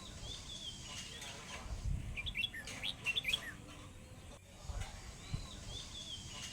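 Small birds chirping: a few thin, arching calls, then a quick cluster of short chirps about two to three and a half seconds in, over a low background rumble.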